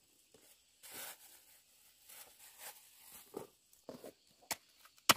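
Footsteps on dry dirt and the rustle of a plastic bag, then short sharp knocks of a machete striking a dried earthen ant nest, the loudest just before the end.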